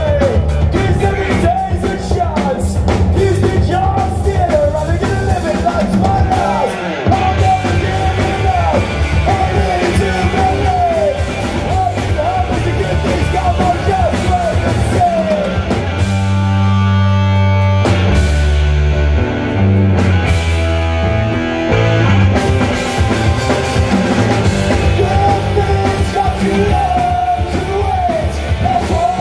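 Live punk rock band playing: distorted electric guitar, bass guitar and drum kit with shouted lead vocals. About sixteen seconds in, the cymbals and vocals drop out for several seconds while guitar and bass carry on, then the full band and singing come back in.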